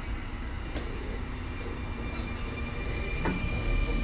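Sotetsu 9000 series electric commuter train heard from inside the car, getting under way: a low running rumble that grows louder toward the end, with a steady high whine coming in about halfway and a single knock about three seconds in.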